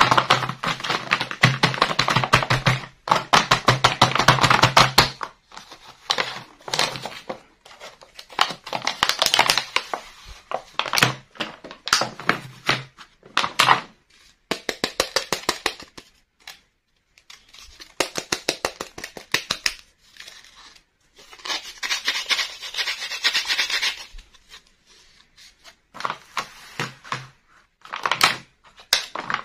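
Fingernails tapping and scratching at a crinkly clear plastic blister pack and a small hard-plastic toy house. The sound comes as rapid runs of clicks and crackles, broken by short pauses.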